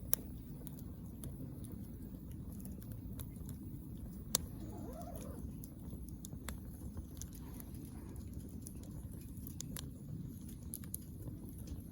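Wood fire crackling in a camping fire pit: scattered sharp pops over a steady low rumble, with two louder pops, one at the very start and one about four seconds in.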